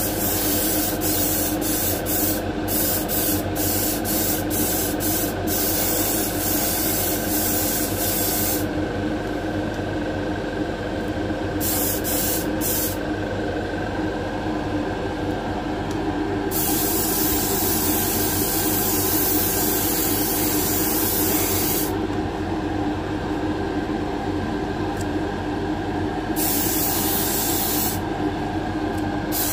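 Spray gun hissing as it sprays automotive 2K paint onto a diecast toy trailer, the trigger pulled in short bursts at first and then in longer passes with pauses, over a steady hum.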